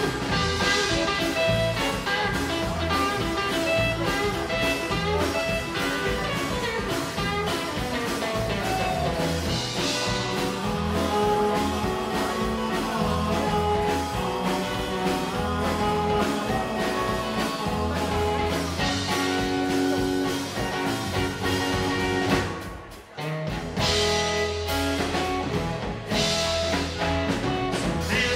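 A live rockabilly band playing, with a strummed acoustic guitar and drums. About four-fifths of the way through, the band stops for a moment on a break and then comes back in.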